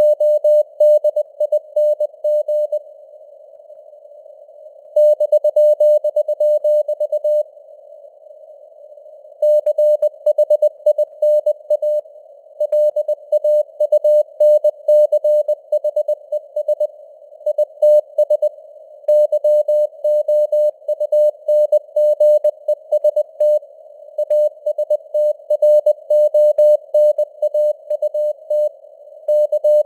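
Morse code sent at 20 words per minute as a single steady beep keyed on and off in dots and dashes, with simulated radio band noise hissing around the tone. The keying pauses twice, a few seconds in and again around eight seconds in.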